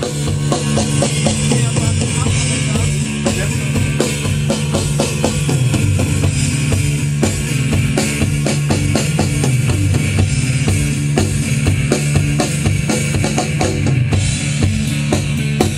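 Band music with a drum kit playing a steady run of hits over a strong bass line.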